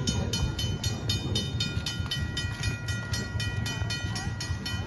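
Railroad grade-crossing warning bell ringing steadily, about four strikes a second, over a low continuous rumble.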